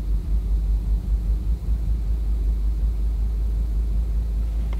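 BMW 328xi straight-six idling roughly just after a cold morning start: a low rumble that surges unevenly a few times a second, the misfire-like lurching that shakes the cabin, settling somewhat steadier after about two seconds.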